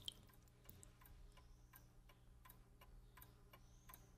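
Faint, steady ticking of a clock, about three ticks a second.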